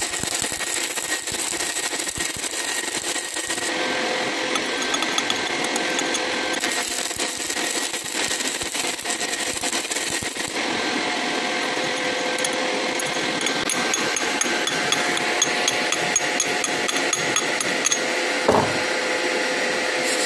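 Stick electrode arc welding on a steel hydraulic shaft: the arc gives a steady, dense crackle and sizzle, with a faint steady hum underneath. A single knock comes near the end.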